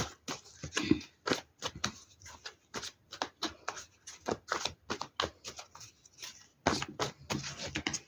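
A tarot deck being shuffled by hand: a quick, irregular run of card snaps and rustles.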